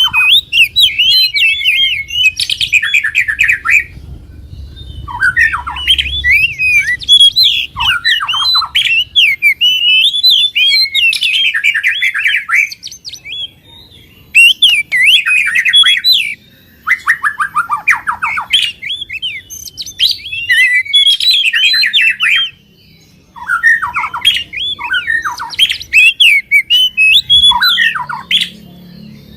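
Songbird singing in long bouts of fast, varied chirps and trills, breaking off briefly four or five times.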